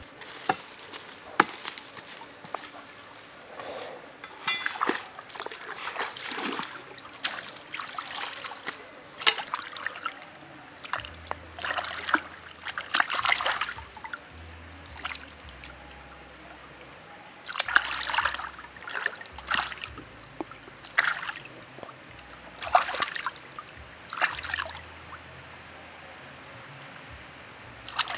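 A plucked whole chicken being washed by hand in a shallow stream: irregular splashes and sloshing as it is dunked and rubbed in the water, over the stream's steady trickle.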